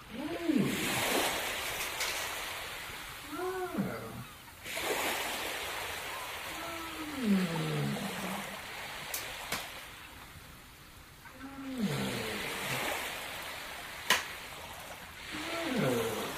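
Ocean surf washing in swells every few seconds. A cat meows five times over it, each meow a short rise and fall in pitch.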